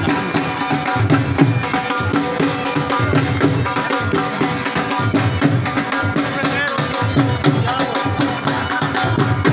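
Dhol drumming a fast, even Luddi dance rhythm, with held melody notes over it and crowd voices.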